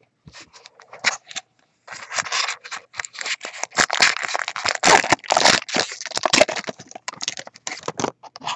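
Foil wrapper of a 2010 Bowman Draft Picks & Prospects baseball card pack crinkling and tearing as it is opened by hand: a run of rustles and rips, loudest in the middle.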